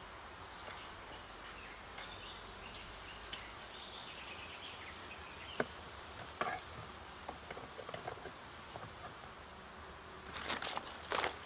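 Honeybees buzzing around an opened wooden hive, with a few sharp clicks as hive parts are handled, and a louder stretch of scraping and rustling near the end.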